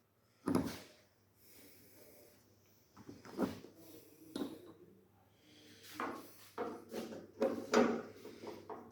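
Knocks and clatter of a 10 mm spanner working the fender bolts on a car: one knock about half a second in, a few scattered ones, then a quicker run of knocks in the last few seconds.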